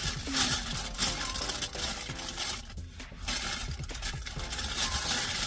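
Thin plastic carry-out bag rustling and crinkling as it is handled, a dense run of small crackles.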